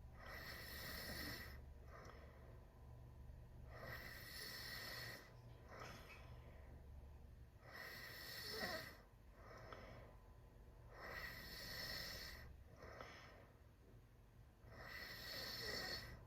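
A teenager snoring through a wide-open mouth in sleep: a rasping snore about every three and a half to four seconds, five in all, with fainter breaths between them.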